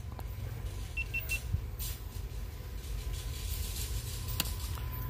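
Low steady rumble of a distant approaching BNSF diesel freight train. About a second in come three quick high beeps.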